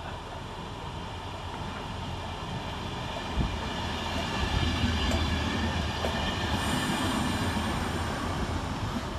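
Chiltern Railways Mk3 coaches, led by a driving van trailer and propelled by a Class 68 diesel locomotive at the rear, rolling into the platform. A low rumble grows louder from about three and a half seconds in, with a few wheel knocks and a high wheel or brake squeal as the train slows to stop.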